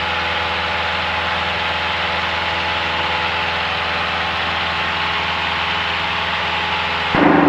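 Light aircraft's piston engine and propeller droning steadily in cruise, heard from inside the cockpit, with a short louder burst right at the end.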